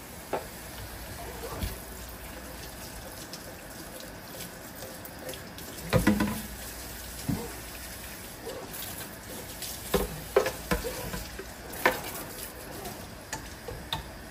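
Tap water running steadily into a sink while a blender jar is rinsed out, with several hard knocks and clunks of the jar and its parts, the loudest about six seconds in. The water cuts off at the end.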